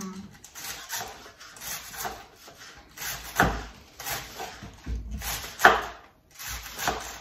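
Knife cutting garlic on a wooden cutting board: irregular scraping strokes and knocks, the strongest about halfway through and again near the end.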